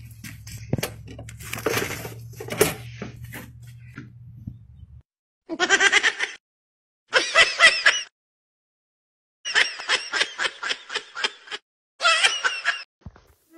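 A young kitten meowing loudly and shrilly in four bursts. The third burst is a quick run of short squeaks, about five a second. Before the kitten, for the first five seconds, there are a few knocks and taps over a low hum.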